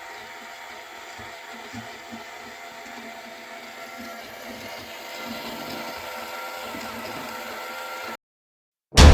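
A small electric motor driving plastic gears runs steadily with a light whine and irregular faint ticking. It cuts out abruptly about 8 seconds in, and loud background music starts about a second later.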